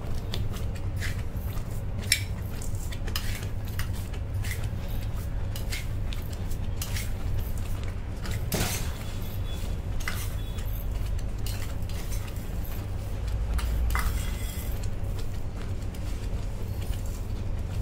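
A steel spoon clinks again and again, at an uneven pace, against a steel wok and a sugar container as granulated sugar is spooned into the pan one spoonful at a time. A steady low hum runs underneath.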